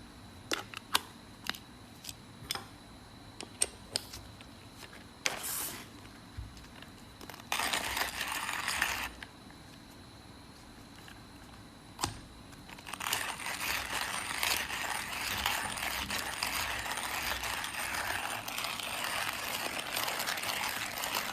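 Hand-cranked manual coffee grinder with a ceramic burr. First a string of separate sharp clicks, then two short bursts of grinding, and through the second half a steady, continuous grinding rasp as the crank is turned.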